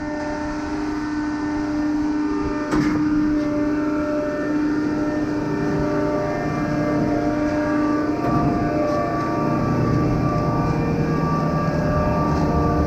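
Diesel engine of a concrete pump running steadily while the pump works, with a single sharp knock about three seconds in and a deeper rumble building about eight seconds in.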